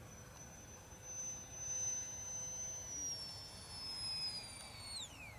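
Electric ducted fan of a radio-controlled model jet whining high and steady in flight. Its pitch steps down about three seconds in, then falls steeply near the end as the throttle is cut for the landing approach.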